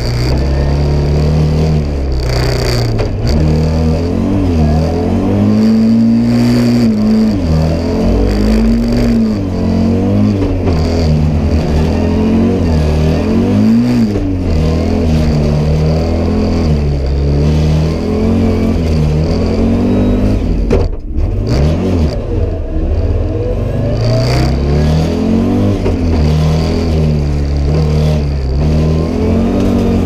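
Audi Sport Quattro S1's turbocharged five-cylinder engine heard from inside the cabin, revving up and down repeatedly as the car is driven hard through the stage, with a brief lift off the throttle about two-thirds of the way through.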